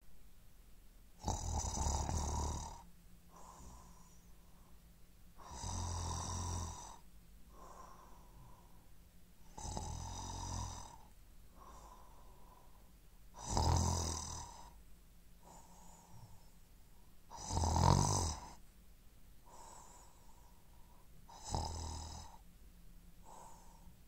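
A man snoring: six loud snores, about one every four seconds, with a softer breath between each pair.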